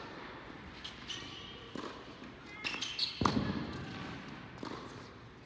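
Tennis racket striking the ball and the ball bouncing on an indoor hard court: several sharp pops, the loudest about three seconds in, each with a short echo in the hall. A brief squeak of tennis shoes on the court comes just before the loudest hit.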